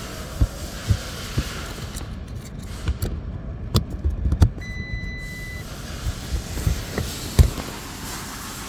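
Scattered clicks and knocks of plastic interior trim being handled and refitted over the Bentley's gear-selector area, with one electronic beep lasting about a second about four and a half seconds in.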